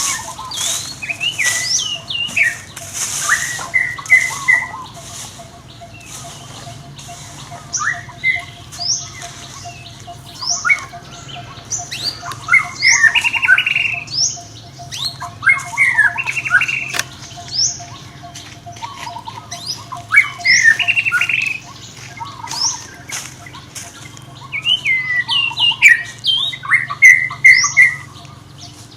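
Baby monkey calling: repeated short, high-pitched squeaks and squeals that come in bursts throughout, over a faint steady hum.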